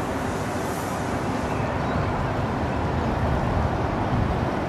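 Steady outdoor background noise: a low rumble with hiss above it, and no distinct events. The highest hiss thins out about a second and a half in.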